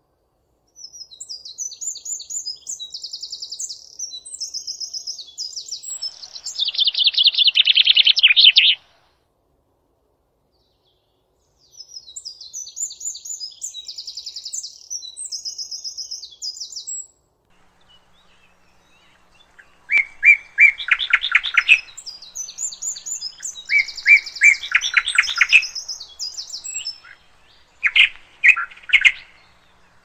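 Common nightingale singing: phrases of high chirps and fast trills with short pauses between them. The loudest are rapid repeated notes in the second half.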